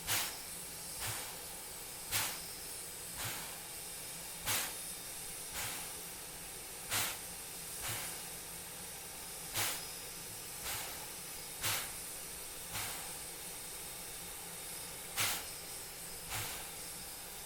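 Steam locomotive chuffing slowly, about one exhaust beat a second, over a steady hiss of escaping steam.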